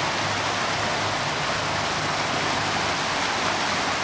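Steady rush of a trout creek running high, a constant even wash of water noise.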